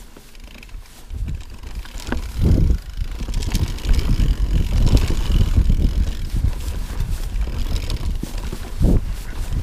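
Mountain bike riding fast over a stony trail: tyres rumbling and thudding over rocks, the bike rattling with sharp clicks at each bump, and wind on the microphone. It grows louder about a second in.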